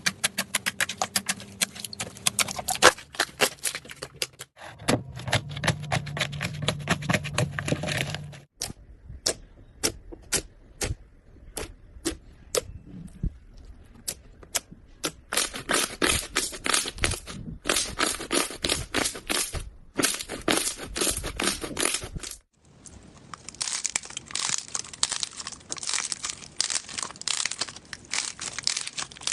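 Slime being squeezed and pressed, giving rapid runs of crackling, popping clicks. The clicks thin to a few separate pops for several seconds in the middle, then pick up densely again, with short breaks where the clips change.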